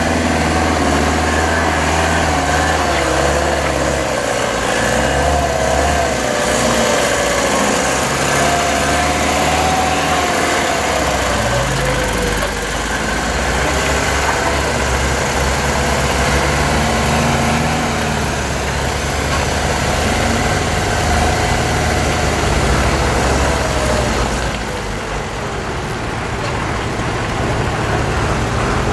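Mercedes-Benz Unimog 421's 2.4-litre four-cylinder diesel engine running under load off-road, its revs rising and falling with the throttle. It gets a little quieter near the end as the truck pulls away up the slope.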